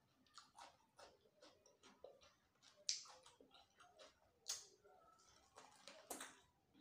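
Mouth sounds of biting and chewing a raw cucumber: a run of soft wet chewing clicks, with sharper crunches about three seconds in, at four and a half seconds and near six seconds, the first the loudest.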